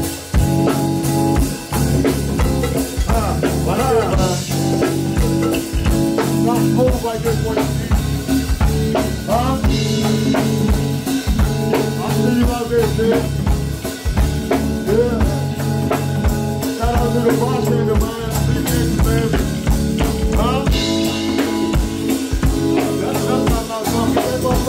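Live band music: a drum kit keeping a steady beat with cymbal crashes every few seconds, bass and keys sustaining chords, and vocalists singing into microphones.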